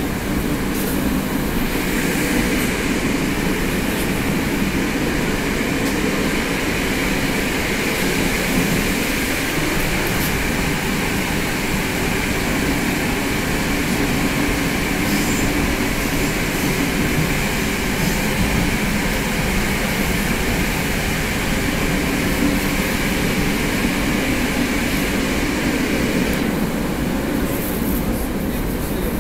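Inside a carriage of a Moscow metro 81-765/766/767 train under way between stations: a steady running noise of wheels on rail and the car's running gear. A higher rushing band sets in about two seconds in and falls away near the end.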